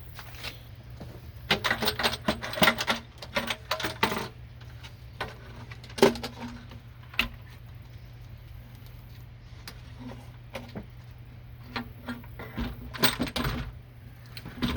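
Clinks, rattles and knocks of metal and plastic engine parts being handled as the loosened upper intake manifold of a Ford 3.0 V6 is pulled up. There is a dense run of clatter in the first few seconds, a single sharp knock about six seconds in, and another run near the end, over a steady low hum.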